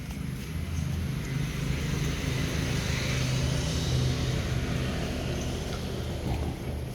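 A motor vehicle passing: its noise swells to a peak about halfway through and then fades, over a steady low engine hum.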